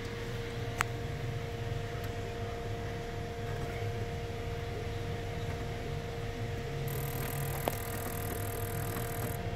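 Fuel system of a 1996 Buick Century 3.1 L V6 during an injector balance test: a steady hum while the fuel rail is pressurised, then the number 5 fuel injector is pulsed, adding a hiss about seven seconds in that lasts a couple of seconds and lets the rail pressure fall. This injector sounds a lot different from the others.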